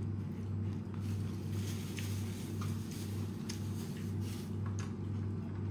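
Soft rustles and a few light clicks of french fries picked up by hand and eaten, over a steady low hum.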